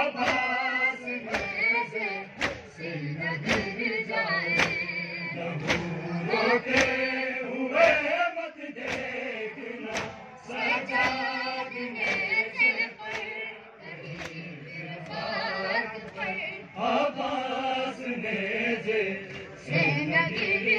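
A large crowd of men chanting a Shia noha (lament) in unison, with sharp chest-beating (matam) slaps keeping time about every two-thirds of a second.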